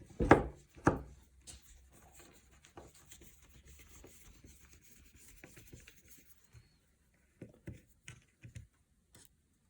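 Steel screws being turned out of a brass hinge set into a wooden cabinet door: two sharp knocks within the first second, then faint scratching and rubbing, with a few light clicks near the end.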